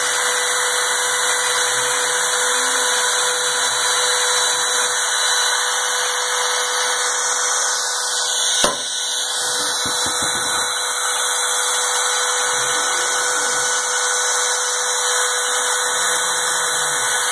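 A spindle on a home-built CNC machine running in mill mode, cutting steadily with a constant whine at about 40 inches a minute as the cut deepens. There is one sharp click partway through.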